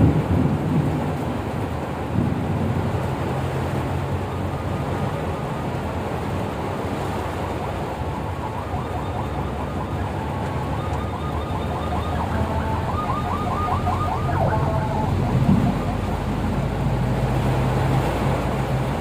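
Vehicle running with a steady low engine hum under a constant wash of heavy rain and road noise. A faint warbling tone comes and goes in the middle.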